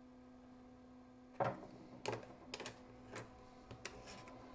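A 3D-printed plastic fan grill is handled and fitted onto its housing, giving a series of sharp plastic clicks and knocks. They start about a second and a half in, the first the loudest, then come more lightly every half second or so. Under them runs the faint steady hum of the small 90 mm 12 V fan.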